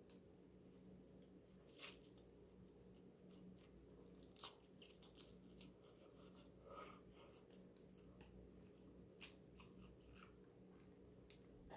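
Quiet close-up eating sounds: a person chewing and slurping instant noodles, heard as a handful of short, sharp mouth noises spaced a second or more apart over faint room hiss.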